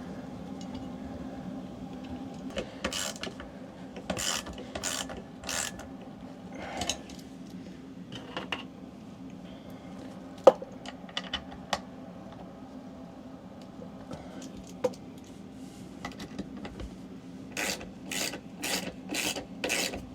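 Screws being driven by hand into a replacement RV slide-out motor's mount: short rasping turning strokes in scattered groups, with a couple of sharp clicks, and a quick run of about six strokes near the end as the screws are run in snug.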